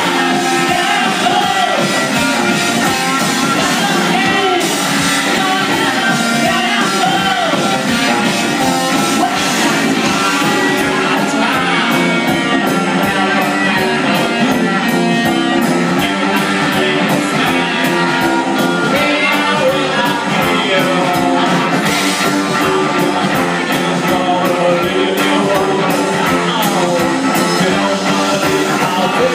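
Rock band playing live: electric guitar and drums with a singer.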